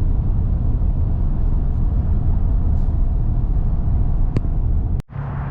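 Steady low rumble of road and engine noise inside a car driving at highway speed. It cuts off abruptly about five seconds in, and a quieter, different background follows.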